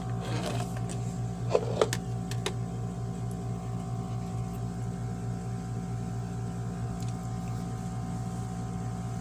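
Steady low machine hum with a faint regular pulse. A few light clicks and rustles in the first couple of seconds, from toothpick-skewered candies being picked out of a plastic tub.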